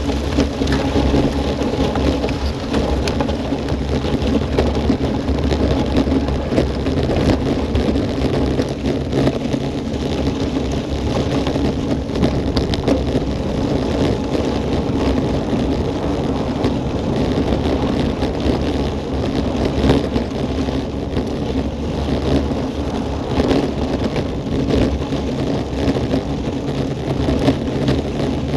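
Road bicycle tyres rolling fast over a loose gravel road, a steady crackling patter of stones with rumble and rattle, heard from a camera mounted on the bike. Wind rushes over the microphone throughout.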